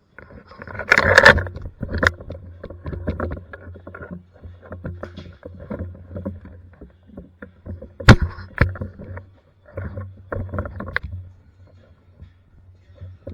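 Irregular knocks, clicks and rustles close to the microphone, over a low steady hum. The loudest are a rustling burst about a second in and a sharp click about eight seconds in.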